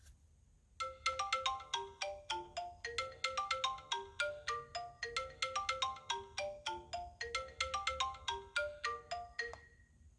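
An iPhone 11 Pro ringtone playing: a quick repeating melody of short, clear notes, about five a second. It starts about a second in and stops just before the end.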